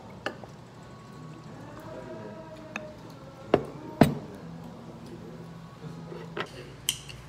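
Beer poured from a glass bottle into a beer glass, then two sharp knocks about three and a half and four seconds in as glassware is set down on a wooden table; the second knock is the loudest sound.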